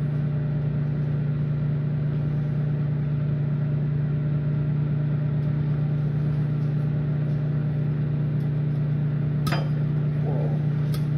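Microwave oven running with a steady low electrical hum. A couple of sharp pops near the end are the first kernels of loose microwave popcorn starting to pop in a bowl.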